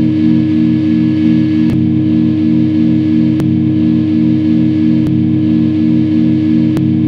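Electric guitar holding a steady low chord that rings on without change, with a faint click about every second and three-quarters.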